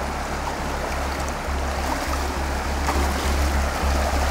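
Shallow mountain river rushing over a rocky bed, a steady wash of flowing water.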